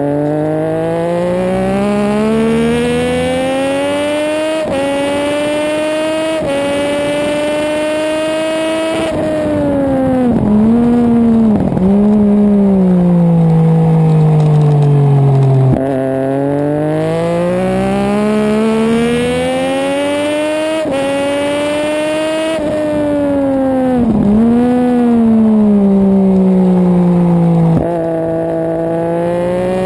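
Racing motorcycle engine at high revs, heard from a camera mounted on the bike: the pitch climbs through each gear and drops abruptly at every upshift, with brief sharp dips around ten to twelve seconds in and again around twenty-four seconds as the throttle is closed and reopened for corners.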